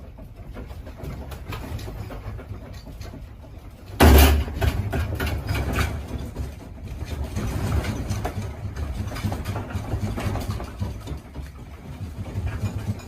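A low rumble with faint rattling, a sudden loud thump about four seconds in, then heavier rumbling.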